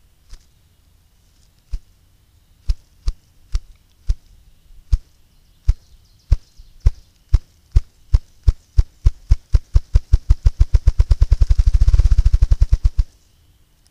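Male ruffed grouse drumming on a log: low wing-beat thumps, slow and widely spaced at first, speed up steadily into a rapid whir that is loudest near the end and stops abruptly. The drumming is the male's territorial and courtship display.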